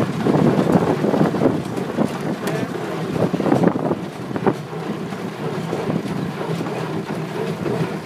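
Fordson Major tractor engine running steadily while driving a Bamford BL30 small square baler as it bales hay, with wind buffeting the microphone.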